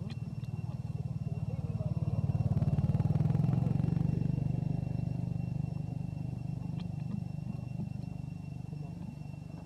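A motor vehicle engine running with a steady low hum, growing louder about three seconds in and then slowly easing off.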